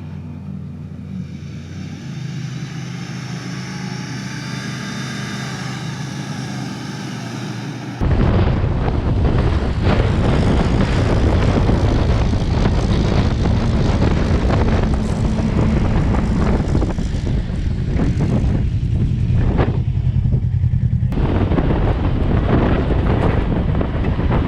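Toyota 4Runner's engine running steadily while driving. About eight seconds in, the sound jumps suddenly to a much louder, rough rumble of wind buffeting the microphone over the engine, which lasts to the end.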